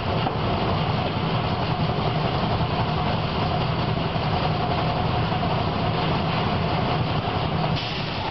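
Steady low hum and rumble inside an old tram car.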